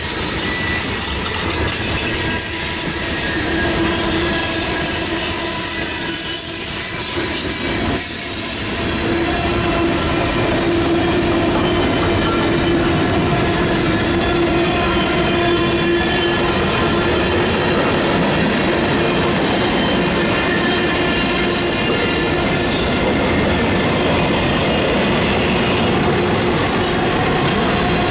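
Freight cars of a mixed freight train rolling past close by: a steady, loud rumble of steel wheels on rail, with squealing wheels and clicking over the rail joints.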